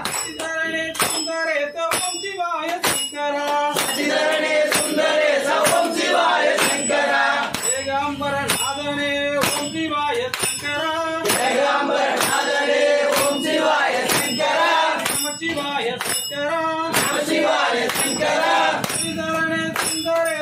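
Men singing a devotional bhajan chant, kept in time by a steady metallic beat of hand cymbals at about two strikes a second.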